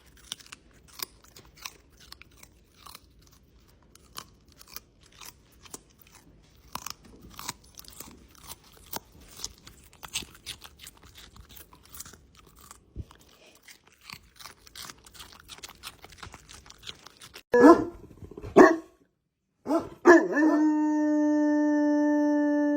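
A dog crunching and chewing on something hard: many sharp, irregular crunches for about thirteen seconds. Then come two loud barks, a moment of silence, and a dog starting a long, steady howl near the end.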